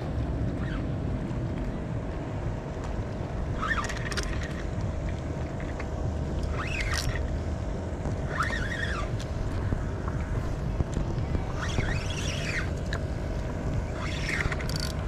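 Wind and water around a fishing kayak, a steady low rush with a faint constant hum. About five short rising-and-falling calls come and go through it.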